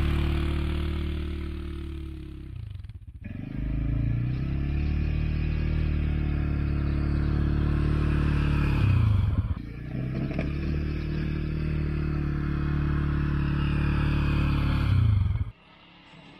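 CFMOTO CForce 520 ATV's single-cylinder engine running under load while plowing snow. It eases off and picks up again twice, then cuts off abruptly about a second before the end.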